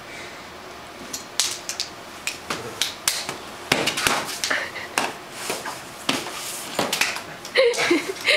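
A person flopping and rolling on a sealed concrete floor: irregular thumps, knocks and scuffs of body and shoes against the floor, several a second at times. A voice comes in near the end.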